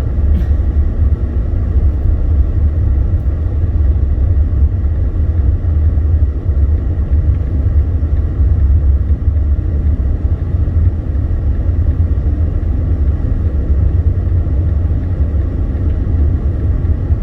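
Steady low rumble of a car driving on snowy roads, engine and tyre noise heard from inside the cabin.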